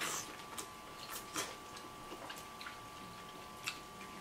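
Quiet eating sounds: scattered soft clicks and smacks of lips and crab shell as king crab leg meat is sucked and picked from the shell, over a faint steady hum.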